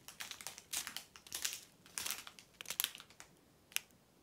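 Small plastic bags of diamond-painting drills crinkling as they are handled and flipped through, in a string of short crackles that thin out near the end.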